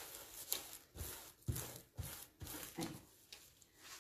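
Plastic sheet rustling and crinkling as a hand rubs and presses it down with a paper wipe, in a series of short, uneven strokes.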